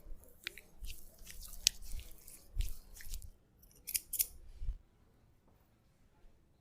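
A barber's blade cutting hair: a run of short, crisp snips or scrapes that stops a little before five seconds in.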